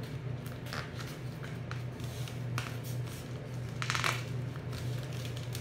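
Pink metallic self-adhesive wall sticker film crinkling and rustling as it is pressed and smoothed by hand onto styrofoam, which it will not stick to; a few short crinkles, the loudest about four seconds in, over a steady low hum.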